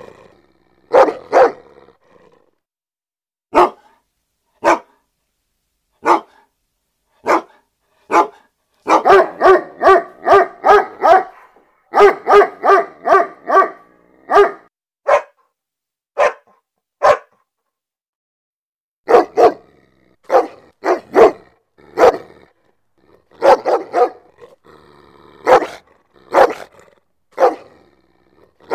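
Angry dog barking: loud single barks with pauses between them, breaking twice into fast runs of about four barks a second in the middle.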